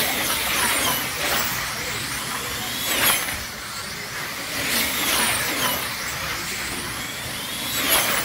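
A pack of electric slot cars racing on a multi-lane track, their small motors whining high and changing pitch. The sound surges several times as the pack sweeps past.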